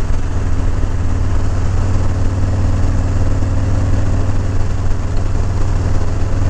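A 2020 Harley-Davidson Low Rider S's Milwaukee-Eight 114 V-twin running steadily at cruising speed, heard from the saddle with a constant rush of wind and road noise.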